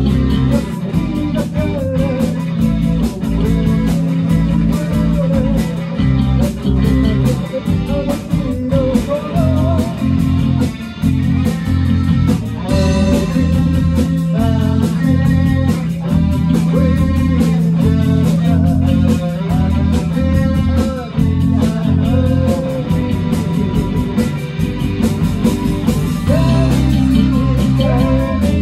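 Rock band playing live and loud: electric guitar, bass guitar and a drum kit keeping a steady beat.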